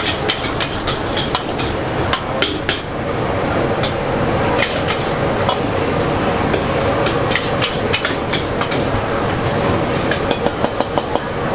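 Metal spatula clanking and scraping against a large wok as pad thai noodles are stir-fried, over steady frying noise. A fast run of clinks comes near the end.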